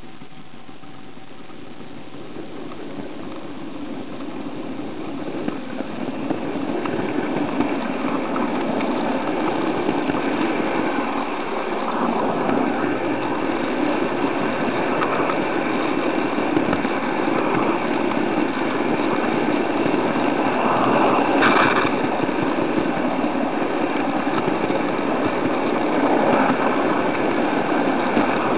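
Running noise of an H0-scale (1:87) model train carrying an onboard camera: a steady rushing whir from its motor and wheels on the track that grows louder over the first several seconds and then holds. There is one brief click about three-quarters of the way through.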